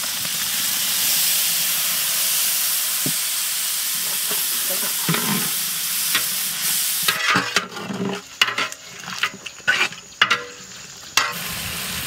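Spiced duck masala sizzling steadily in a large aluminium pot as curd is poured in. About seven seconds in the sizzle gives way to a metal spatula scraping and knocking against the pot as the mixture is stirred, then a quieter steady sizzle near the end.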